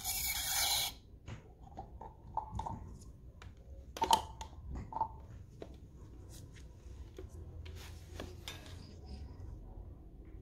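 Hand-handling noise at a bicycle tyre valve: a rag wiping sealant off the valve and a plastic syringe being fitted to the valve stem, with scattered small clicks, taps and rubbing. It opens with a short loud hiss lasting about a second.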